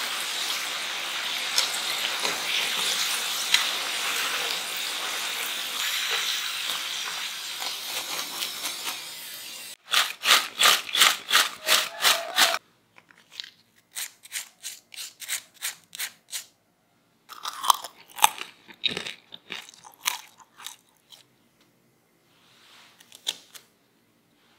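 Potato sticks deep-frying in hot oil, a steady sizzle for about ten seconds. Then seasoned crispy fries tossed in a glass bowl, a quick run of even strokes, followed by scattered crunchy bites into the fries.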